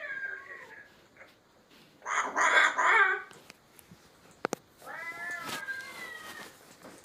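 Three drawn-out meow calls, the second the loudest and harshest. A single sharp click comes between the last two.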